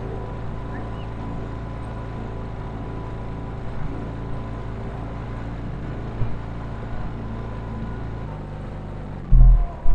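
Outboard motor of a small inflatable boat running steadily under way, with a constant hum. Its note shifts slightly about eight seconds in, followed near the end by two loud, heavy thumps.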